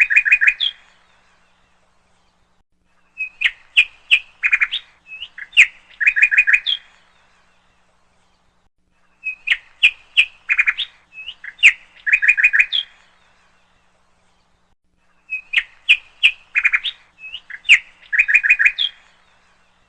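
Bird chirping in short phrases of quick chirps and trills. The same phrase of about three and a half seconds comes back every six seconds or so, with silence between, like a looped birdsong recording.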